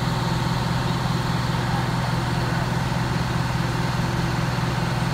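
Fire truck diesel engine running at a steady speed, a constant low drone.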